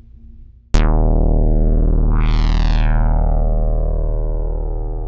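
Synthesizer music sting for a title card: a sudden loud hit with a deep bass tone comes in under a second in and slowly dies away. About two seconds in, a short rising sweep climbs over it.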